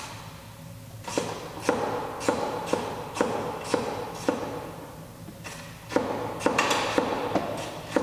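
A run of sharp clicks with a brief ring, about two a second, from a hand tool working the screws inside a car's front wheel arch. The clicks start about a second in, stop for a moment past the middle, then pick up again.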